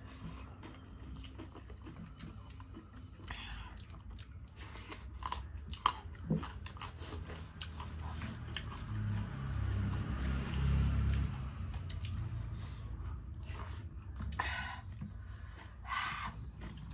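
Close-up eating sounds: chewing and biting through a meal of rice, dal and chicken, with many small scattered clicks and a low hum around the middle.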